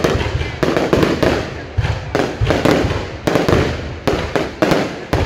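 Aerial firework shells bursting overhead in quick succession, about two to three sharp bangs a second, each with a short echoing tail.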